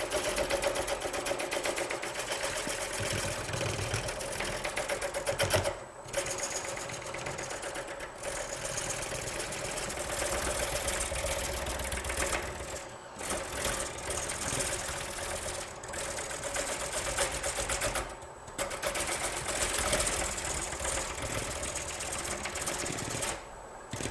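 A woodturning tool cutting wood spinning on a Laguna Pinnacle lathe, giving a rapid rattling chatter. The chatter stops briefly several times as the tool comes off the wood.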